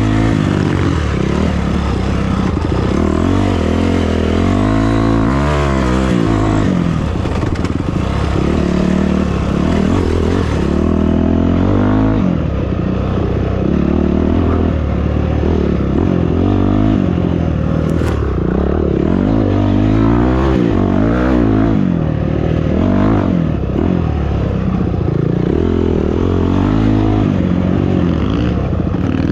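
Off-road vehicle engine running under load, its pitch rising and falling repeatedly as the throttle opens and closes over rough ground, with clatter and scraping from the ride.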